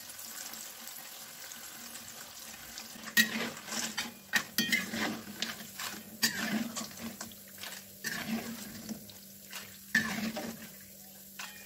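Cassava chips deep-frying in hot oil in a wok: a steady sizzle. From about three seconds in, a wire mesh skimmer and spatula knock and scrape against the wok as the fried chips are scooped out, with the sizzle going on underneath.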